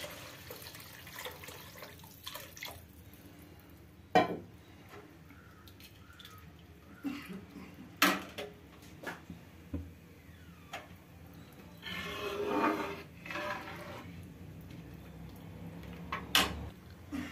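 Metal spatula stirring a thin yogurt kadhi in a steel kadhai: liquid sloshing, with a few sharp clinks of metal striking the pan. The longest stretch of sloshing comes about twelve seconds in.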